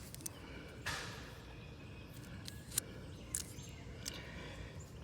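Faint handling noise of an LED headlight bulb and its wiring held in the hand: a brief rustle about a second in and a few light clicks.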